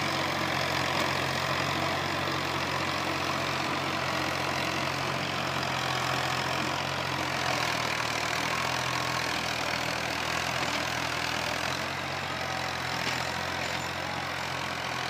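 Universal tractor's diesel engine running steadily as it pulls a rotary tiller through dry soil, with the tiller's churning mixed into the engine note. It grows slightly fainter near the end as the tractor pulls away.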